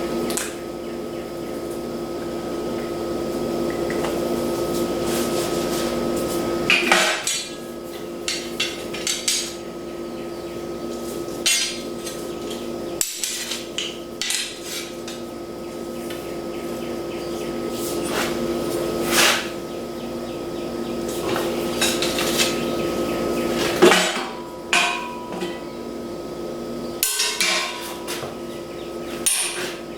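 Metal tools and metal pieces clanking, tapping and clinking at irregular intervals over a steady hum, as metal stock is handled and worked at a bench.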